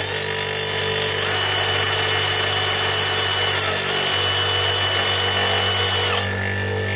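Bench grinder running steadily while a TIG tungsten electrode is ground to a point against its wheel, with a thin high whine that breaks off briefly in the middle and stops a little before the end.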